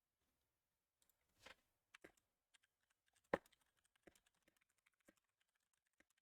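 Faint typing on a computer keyboard: scattered light key clicks that come quicker in the second half, with one sharper knock about three seconds in.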